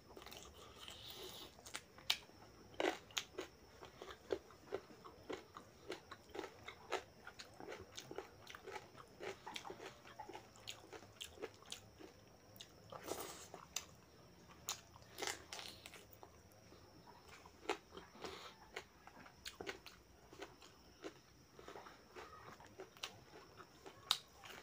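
Close-up eating sounds of a person chewing mouthfuls of rice and mutton curry eaten by hand: many short, irregular wet smacks and clicks. Near the end comes a sharper crunchy bite into a papad.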